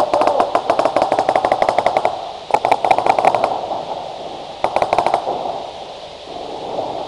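Paintball markers firing in rapid volleys of shots: one long burst of about two seconds, then a shorter burst about two and a half seconds in and another about four and a half seconds in.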